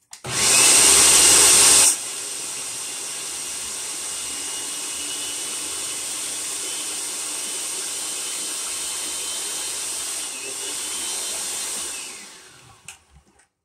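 Electric food processor running, its blade cutting vegan butter and Crisco into flour for pie dough. It is much louder for the first two seconds, then runs steadily and winds down near the end.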